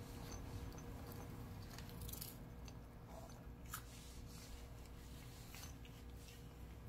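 Turkish Angora cat chewing and biting small cubes of food from a ceramic bowl: faint, irregular crunching clicks a few times a second, over a low steady hum.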